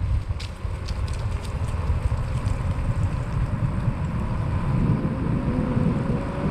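Wind rumbling over the microphone while riding a Favoto Flurry 2.0 fat-tire e-bike, with a faint whine that rises slightly near the end.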